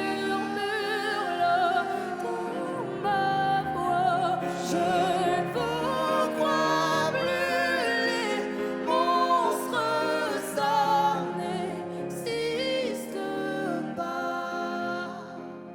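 A pop ballad duet: long held sung notes with strong vibrato over musical accompaniment, with no clear words. It quietens a little near the end.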